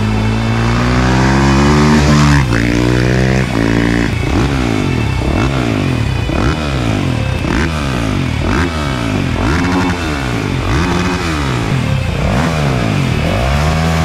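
Suzuki RM-Z450's single-cylinder four-stroke engine with an Akrapovič exhaust, first holding a steady note, then revved over and over from about four seconds in: roughly one throttle blip a second, each rising and falling in pitch.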